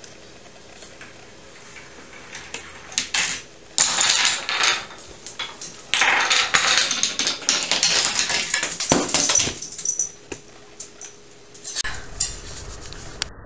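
Wooden dominoes of a homemade chain-reaction machine toppling in quick succession and clattering on a wooden tabletop. The clatter comes in short runs of rapid clicks, densest and loudest from about six to nine and a half seconds in.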